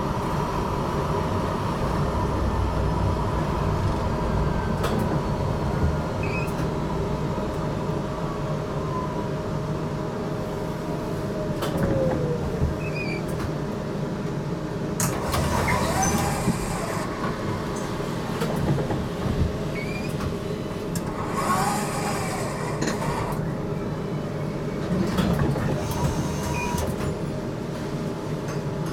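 GTL8 articulated electric tram running, heard from inside, its motor whine falling in pitch as it slows at about ten seconds. Several short stretches of hissing and rattling noise follow later on.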